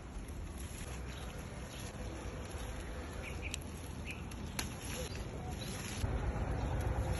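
Outdoor background noise: a steady hiss over a low rumble, with two short high chirps a little after three and four seconds in and a couple of sharp clicks.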